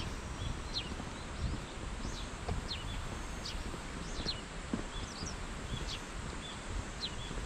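Birds calling with short, sharp notes that drop steeply in pitch, repeated about once a second, over the soft thud of footsteps on a paved lane.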